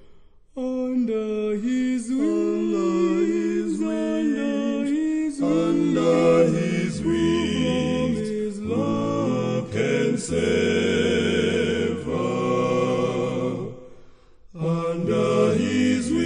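Male vocal quartet singing a cappella in close harmony, with a deep bass line under the upper voices. The singing pauses briefly just after the start and again near the end, between phrases.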